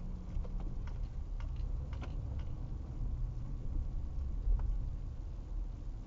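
Low, steady rumble of a car moving at walking pace, heard from inside the car, with a few light irregular clicks in the first couple of seconds and one more near the end.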